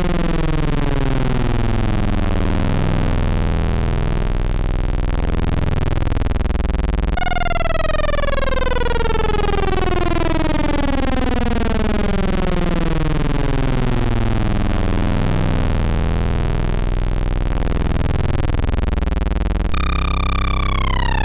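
Eurorack modular synthesizer patch built on a Rossum Trident oscillator, a slow envelope sweeping the waveform in one long sweep after another: a dense stack of overtones glides steadily downward over a low steady note. The sweep starts over about 7 seconds in and again near the end.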